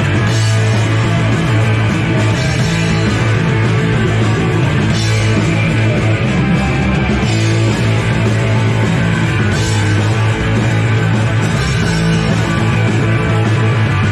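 Punk rock band playing live, loud and continuous.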